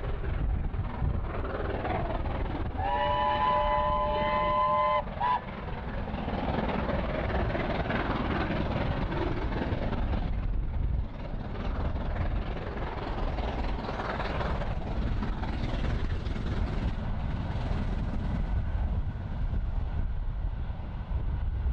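Steam locomotive whistle, blown once for about two seconds and then given a short second toot. Underneath runs the distant sound of the train working, with wind rumble on the microphone.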